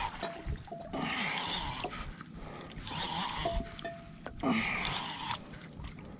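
Water lapping and splashing against the hull of a small wooden outrigger boat, in bursts every second or two.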